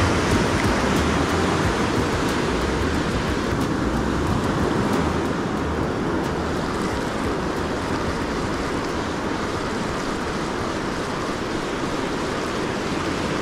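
Ocean surf breaking and washing up the beach, a steady rush of noise, with wind buffeting the microphone.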